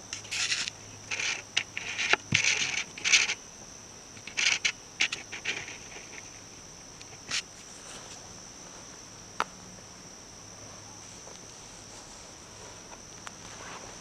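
Insects chirring in a steady, high-pitched drone, with a run of short scratchy noises in the first five seconds or so and a few isolated sharp clicks later.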